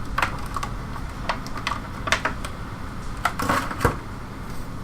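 Scattered light clicks and taps of a boxed bobblehead figure's packaging being handled and opened, with a quick cluster of clicks near the end.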